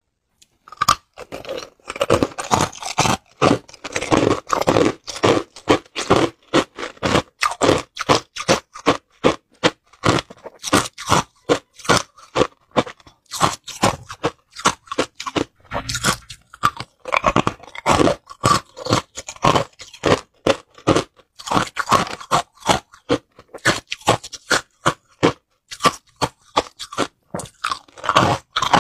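A person biting and chewing hard clear ice cubes, a fast, uneven run of sharp cracking crunches several times a second with brief pauses.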